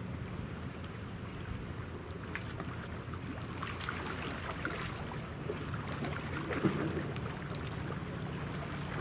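Steady low hum of a large warship's engines carried across open water, from the helicopter destroyer Kaga under way. Scattered faint ticks come in from about two seconds in.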